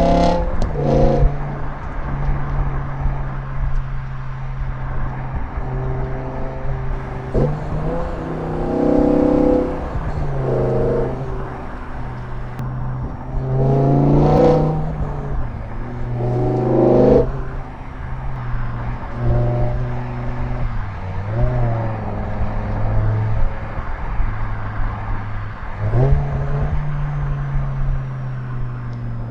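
BMW M6 E63's naturally aspirated 5.0-litre S85 V10 running through its stock exhaust under way: a steady low drone broken by repeated short surges of rising revs, about ten times, the strongest two about halfway through.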